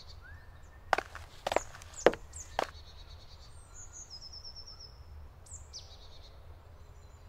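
Small birds chirping in woodland, with short high descending calls and, midway, a quick trill of repeated high notes. About a second in, four sharp crunching footsteps on a gravel track, about half a second apart.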